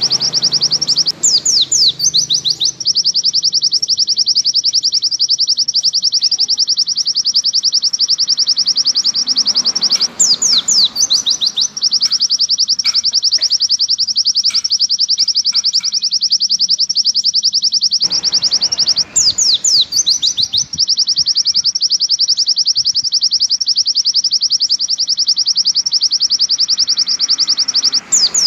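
White-eye (pleci) song: a long, very fast, high trill held without a break, with a burst of quick sweeping notes about every nine seconds.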